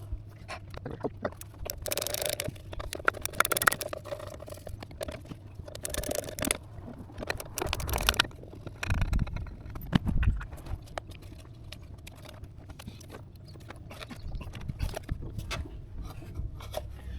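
A ratchet wrench with a 7 mm socket clicking in short spells as the many small bolts of a plastic engine cover are undone, with tool knocks and clatter between.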